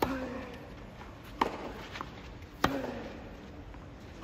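Tennis rally on a clay court: four crisp racket-on-ball strikes traded back and forth about every second and a half, two of them followed by a short grunt.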